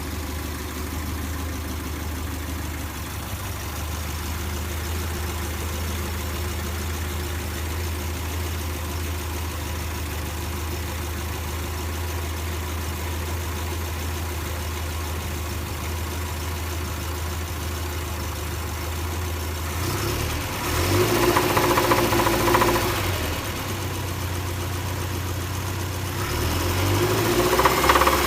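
1975 Triumph Spitfire's four-cylinder engine idling steadily with an engine knock, then revved up briefly twice, once about two-thirds of the way in and again near the end.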